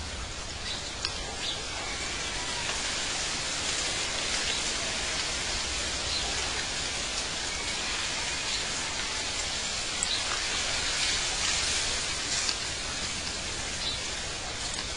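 Steady outdoor night-time ambience: an even hiss with scattered brief, faint chirps.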